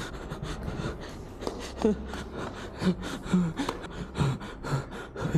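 Fast running footsteps and hand slaps on stone stairs and a tiled floor, a quick string of short knocks, with brief panting gasps in between.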